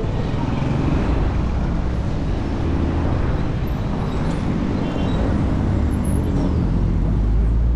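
Steady road and wind noise from a moving bicycle, with a low rumble and light traffic sound. The rumble grows stronger near the end.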